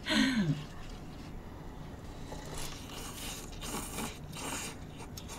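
Cup noodles being slurped: several short, wet slurps in the middle and second half.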